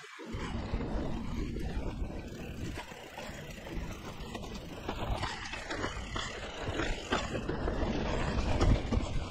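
Mountain bike ridden over dirt singletrack: wind rushing on a chest-mounted action camera over the rumble of the tyres, with frequent rattles and knocks from the bike over bumps and the loudest jolt near the end.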